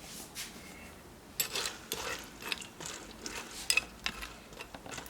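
A spoon or utensil stirring and knocking in a cooking pot: a quiet start, then from about a second and a half in, a run of clinks and knocks with scraping between them.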